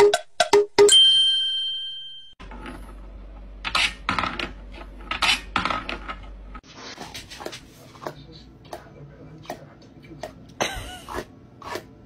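A bright metallic ding rings out for about a second, then irregular light knocks and clinks as kittens bat at a wooden toy with a metal wire track. Fainter scattered taps follow near the end.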